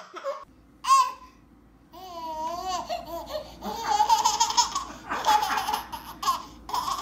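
A toddler laughing and squealing: a wavering, up-and-down squeal about two seconds in, then bursts of giggling belly laughter from about four seconds on.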